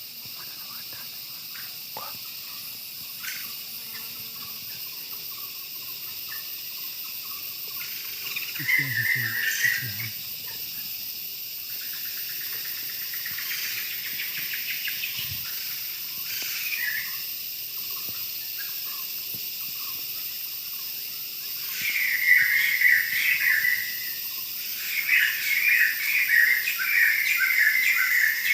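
Night-time tropical forest insect chorus: a steady high buzzing drone, with loud rapid chirping trills breaking in three times, about eight seconds in and twice near the end. A brief low call sounds about nine seconds in.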